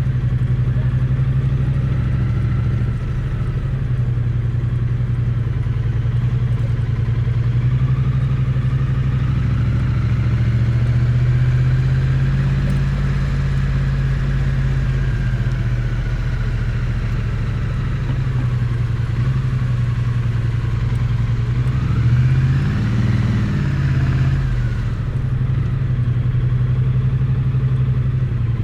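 Triumph Bonneville T100's parallel-twin engine and exhaust running steadily at low revs, picked up close to the exhaust, with a brief rise and fall in revs about three-quarters of the way through.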